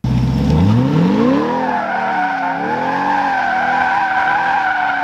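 Car engine revving up and down while the tyres squeal steadily through a drift. It starts suddenly at full level, and the engine pitch climbs over the first second or so, then dips and rises again.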